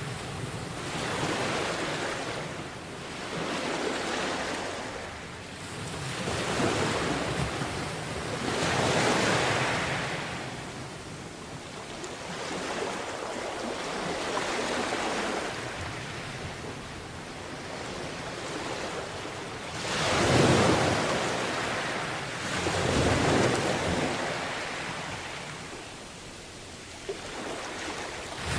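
Small sea waves washing onto a beach, each swell rising and falling every few seconds, with the two strongest about two-thirds of the way in. Some wind noise on the microphone.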